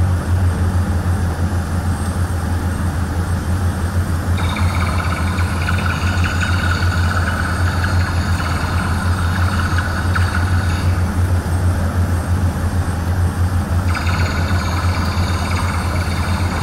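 Heavy engine of a rescue drilling rig running steadily with a deep, even drone. A higher, harsher layer joins about four seconds in, drops away around eleven seconds and comes back a few seconds before the end.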